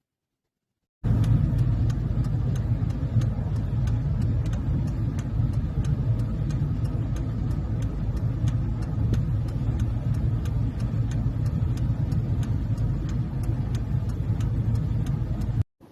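A vehicle's steady low rumble, as from inside a moving truck, with a fast, even light ticking on top; it starts suddenly about a second in and cuts off abruptly near the end.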